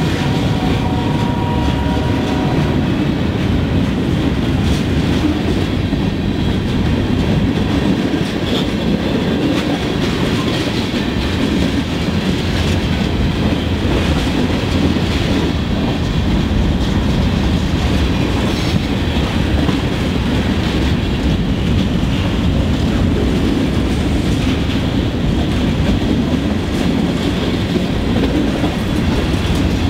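Freight train cars rolling past at close range: a steady rumble with the wheels clattering over the rail joints.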